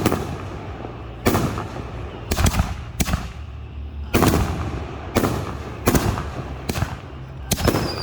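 Fireworks exploding: about eight sharp booms roughly a second apart, each trailing off in a rumbling echo, with a whistle falling in pitch near the end.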